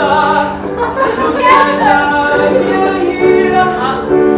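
Several voices singing together, with long held notes from about three seconds in.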